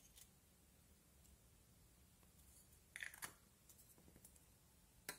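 Faint sticky handling of soft jelly slime figures, with a short cluster of small taps and squelches about three seconds in as one figure is set down on a glass plate, and another brief tap near the end.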